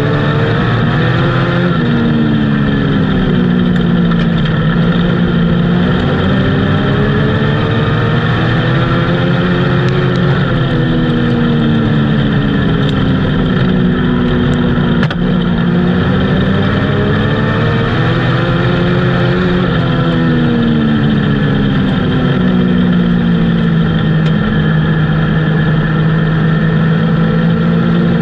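Race car engine at racing speed, heard from inside the cockpit, its pitch dropping as the driver lifts for the turns and climbing back on the straights, in a repeating slow rise and fall.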